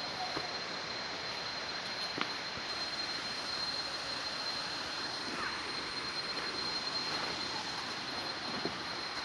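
Waterfall water rushing in a steady, even roar, with a thin steady high-pitched tone running through it.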